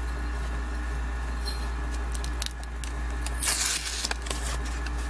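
A small cardboard box being opened by hand: scratchy rustling and clicks of the lid flap and cardboard insert, with a louder scrape of cardboard about three and a half seconds in, over a steady low electrical hum.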